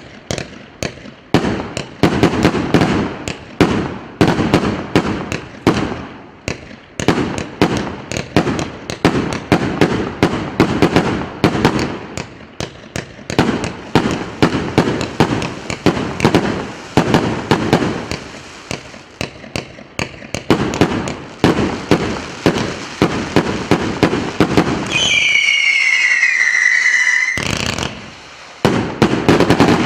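A 288-shot, 1.2-inch firework cake firing: rapid shots and bursts, several a second. Near the end a shrill whistle sounds for about two seconds, its pitch falling slightly, then more bursts follow.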